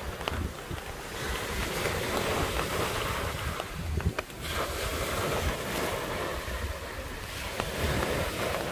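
Strong, gusting wind buffeting the microphone, with sea surf washing on the beach underneath; a few small clicks about four seconds in.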